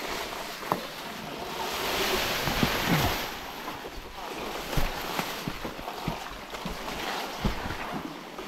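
Wind rushing over the microphone and tyre noise from a Sur-Ron electric dirt bike on the move, a steady rush that swells about two seconds in, with scattered sharp knocks and clicks.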